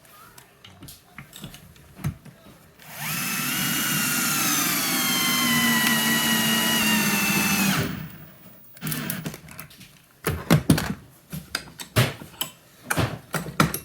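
Power drill driving a washer-head cabinet screw with a T15 bit, running for about five seconds with its pitch sagging slowly as the screw goes in. Then a run of clicks and knocks.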